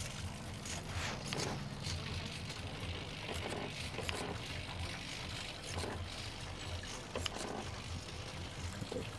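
Small hobby servos of an animatronic eye mechanism whirring in short bursts as the eyeballs and 3D-printed eyelids move, over a steady low hum.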